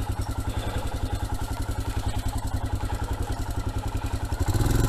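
Royal Enfield Himalayan's 411 cc single-cylinder engine running at low revs with an even, rapid thump. The revs rise near the end as the bike picks up speed.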